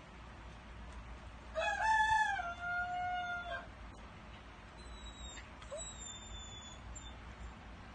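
Dog crowing like a rooster: one drawn-out call of about two seconds that rises, then drops and holds on a lower pitch.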